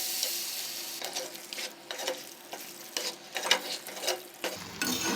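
Chicken frying in masala: a steady sizzle with a spoon scraping and knocking against the pan in short, irregular strokes as it is stirred.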